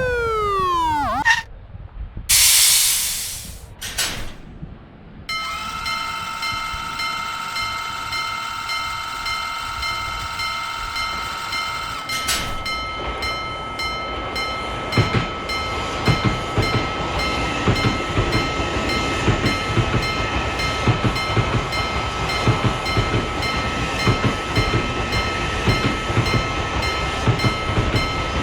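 Japanese level-crossing alarm starting up about five seconds in with a steady, evenly repeating ring, then a train passing with rhythmic wheel clatter under the still-ringing alarm. Before the alarm there is a falling horn-like glide and a short hiss.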